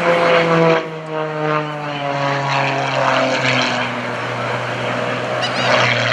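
MXS aerobatic monoplane's piston engine and propeller droning in flight. The note falls steadily in pitch over the first few seconds, then holds.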